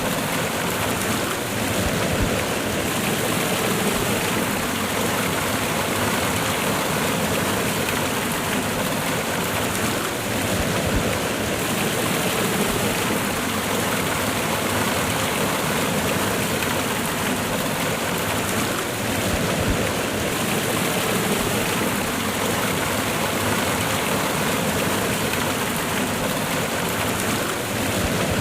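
Water of a small waterfall cascade rushing and splashing steadily over rocks.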